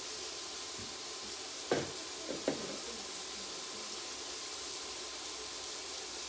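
Fajita filling sizzling in frying pans as a steady hiss, with two brief knocks of kitchen utensils a couple of seconds in.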